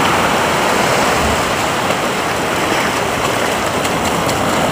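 Shallow ocean surf washing up the beach, a steady rush of foaming water, with light splashing from a small dog wading through the shallows.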